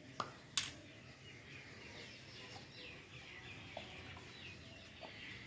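Young chicks peeping: many short, high, falling chirps, one after another. Two sharp clicks come in the first second, the second the louder.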